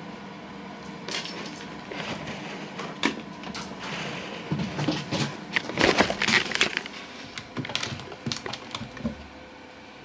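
Crinkly plastic bag crackling and rustling in irregular bursts as a kitten paws and pounces on it, loudest about six seconds in.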